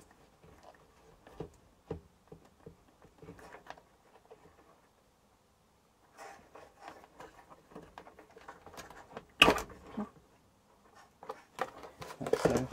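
Scattered light clicks and rustles of hands working on the opened air fryer's internal parts, with one sharp knock about nine and a half seconds in and a cluster of knocks near the end.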